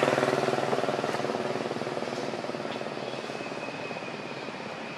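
An engine passing by and fading away, its low pulsing hum dropping steadily in level. A faint, thin, steady high tone comes in a little past halfway.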